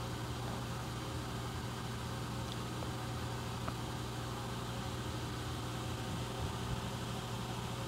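Steady room tone picked up by a phone microphone: an even hiss with a constant low hum.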